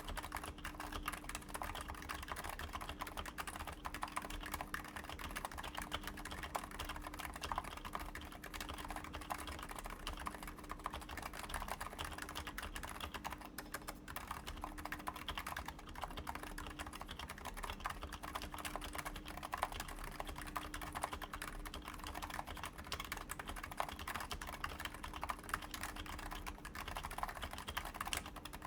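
Steady, fast typing on a Topre Realforce 87U keyboard in a Digilog case, with 55 g Topre electrostatic-capacitive switches, lubed and silenced with purple sliders, under URSA PBT doubleshot keycaps. The keystrokes come in a dense, unbroken run with no long pauses, over a faint steady hum.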